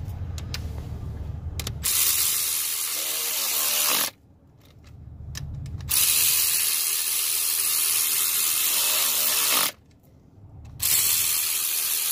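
Cordless electric ratchet running three times, each run lasting a few seconds, as it drives the 8 mm rocker arm bolts all the way down on a GM 5.3 cylinder head. Between runs there is quieter low rumble.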